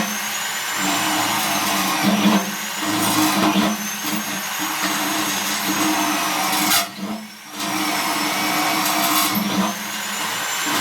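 Small electric drill with a 1.5 mm bit running as it drills holes, a steady hum with a high whine that wavers in pitch. About seven seconds in the drill stops for a moment, then starts again.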